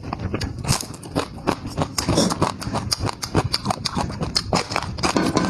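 Close-up eating sounds: someone chewing with wet, irregular smacks and crunches, several a second.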